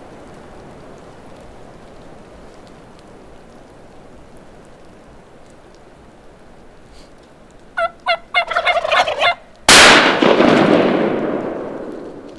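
A wild turkey gobbler gobbles, a rapid run of warbling notes lasting about a second and a half, then a single blast from an old double-barrel shotgun about two-thirds of the way in, which echoes and fades over the next couple of seconds. Before the gobble there is only a faint outdoor hush.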